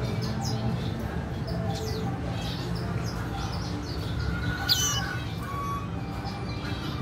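Caged red siskins chirping with many short, high calls, one louder sharp call a little past the middle, over a steady low hum.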